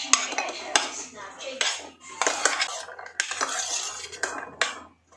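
A metal spoon scraping and clinking against a stainless steel bowl as chopped apple and then pomegranate seeds are pushed out of it into a serving bowl: repeated sharp clinks and scrapes.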